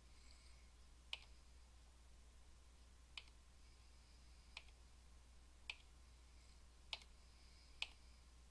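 Computer mouse button clicking six times at irregular intervals of about a second, advancing a slideshow, over a faint steady low hum.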